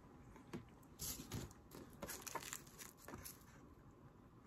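Faint rustling and scattered light clicks of hands handling small tying materials and tools at a workbench.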